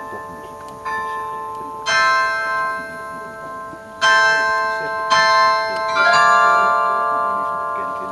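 Bronze bells of a mobile carillon struck one note at a time in a slow melody, about a second or two apart. Each stroke rings on and blends into the next.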